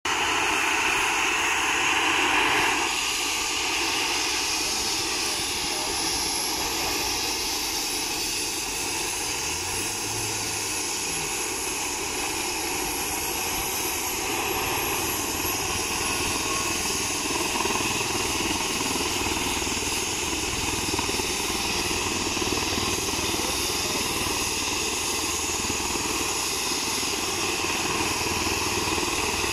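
Airbus H135 trauma helicopter's turbine engines running on the ground: a steady rushing noise with a high jet-like whine that rises slightly about eight seconds in and then holds.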